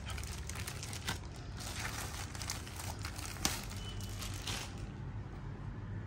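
A thin clear plastic bag crinkling and rustling as hands pull it off and handle it, in a run of irregular crackles with one sharper crackle about three and a half seconds in; the rustling stops about five seconds in.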